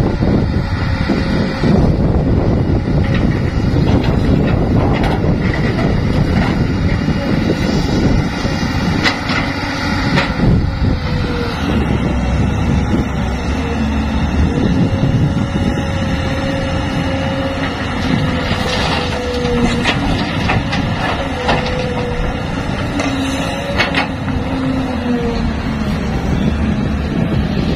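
Caterpillar 320C hydraulic excavator working, its diesel engine running steadily under load with a faint whine that rises and falls as the hydraulics work. Occasional sharp knocks as dirt and rocks drop into the dump truck's steel bed.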